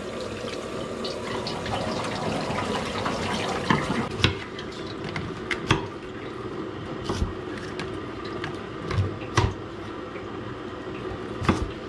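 Water from a kitchen tap running and splashing over scallops in their shells as they are rinsed. Several sharp knocks, a second or two apart, come as shells are handled and set down.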